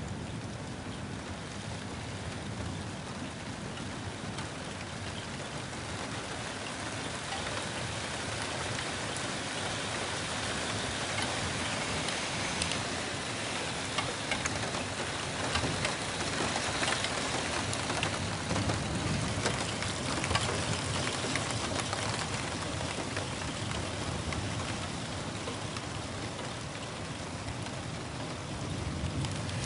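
Heavy rain pouring down steadily, growing heavier in the middle, with scattered drops ticking sharply close by.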